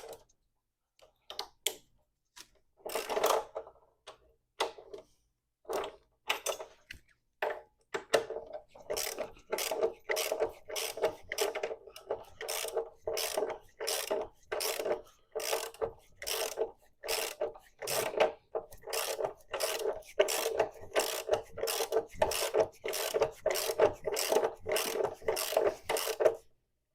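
Socket ratchet clicking in repeated back-and-forth strokes as the 22 mm front axle bolt is backed out. The strokes come scattered at first, then settle into a steady run of about two a second from about eight seconds in, stopping just before the end.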